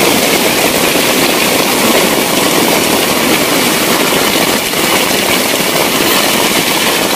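Heavy rain falling steadily on a plastic tarp shelter, a loud, even hiss with no let-up.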